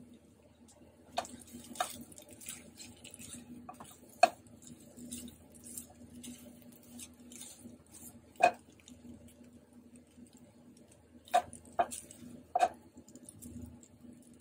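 Cooked green beans being stirred and tossed with spatulas in a nonstick frying pan, with a faint sizzle throughout. About seven sharp knocks of the spatula on the pan are heard: the loudest about four seconds in, and three in quick succession near the end.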